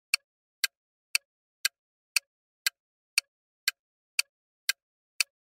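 Clock-style ticking sound effect of a quiz countdown timer, a steady two sharp ticks a second.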